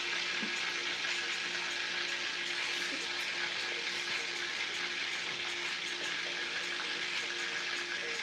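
Chicken pieces frying in a pan on an electric stove, a steady sizzle.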